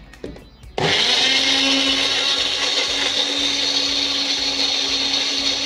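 Electric mixer grinder running at full speed, puréeing chunks of Kesar mango in its small jar. The motor starts abruptly about a second in, after a light knock, and then holds a steady, even whir with a constant motor hum.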